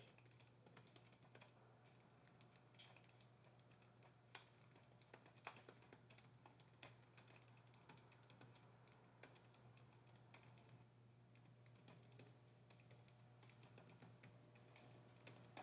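Faint typing on a computer keyboard: scattered, irregular keystroke clicks over a low background hum.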